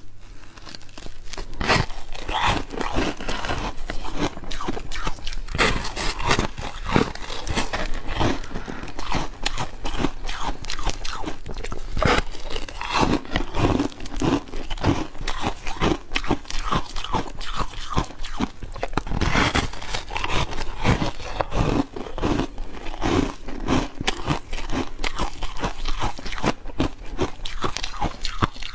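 Snowflake-shaped slab of porous foam ice being bitten and chewed: a dense, steady run of crisp crunches, several a second.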